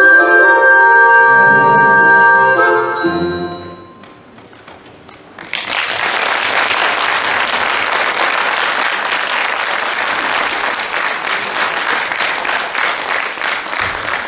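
Folk-dance music ending on a held chord and fading out, then, after a second or so of quiet, an audience breaks into steady applause that lasts to the end.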